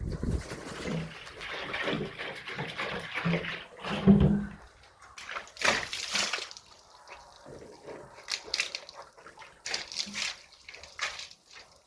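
Water splashing and sloshing in short, irregular splashes, with drips and splatters.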